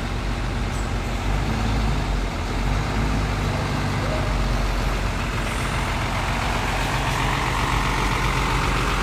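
Hino diesel coach engine running steadily as the bus creeps forward at walking pace, a constant low rumble. A hiss grows over the last few seconds.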